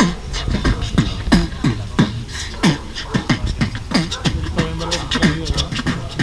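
Human beatboxing: a steady hip-hop beat of deep, downward-sweeping kick sounds, about three a second, with sharp clicks and hissy snare hits between.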